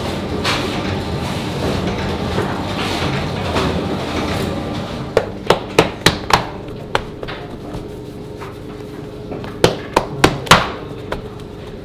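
Sharp slaps of bread dough being shaped by hand on a floured stone counter, in a quick cluster of about five halfway through, one more shortly after, and four more near the end, over a steady background noise.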